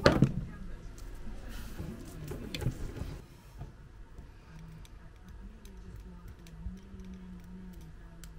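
Small clicks and rustles of hands working wires into a plastic screw terminal block with a small screwdriver, after a sharp knock at the very start.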